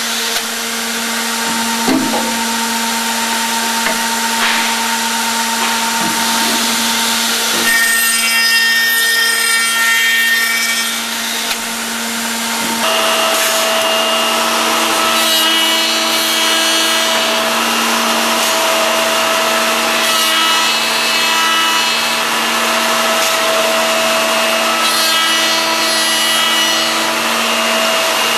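Accu-Systems MTH CNC horizontal machining center at work: spindle motors whine steadily while the cutters machine wood for mortise-and-tenon joints. About halfway through, the whine shifts to a higher pitch.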